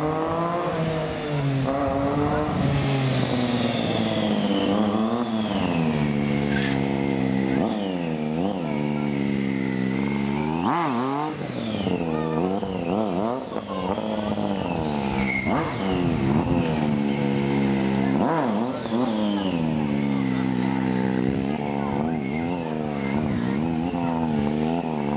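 Triumph three-cylinder motorcycle engine revved hard and let off again and again during stunt riding, its pitch climbing and falling in repeated sweeps, with the throttle briefly shut about eleven and eighteen seconds in.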